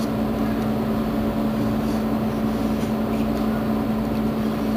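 Mercedes-Benz Citaro G articulated city bus standing with its engine idling: a steady hum with a held low tone that does not change.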